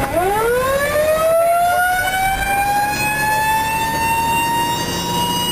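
Fire engine siren dips at the start, then winds back up in one long rising wail that slowly levels off, with the truck's engine running underneath.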